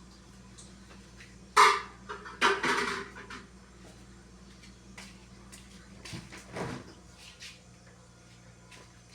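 Household objects being handled and set down during refrigerator cleaning. There is a sharp knock about a second and a half in, a rattling clatter a second later, and a duller knock plus a few light clicks near the end, over a low steady hum.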